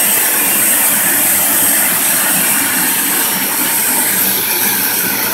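Upright vacuum cleaner running as it is pushed across carpet: a loud, steady rushing motor noise with a faint high whine.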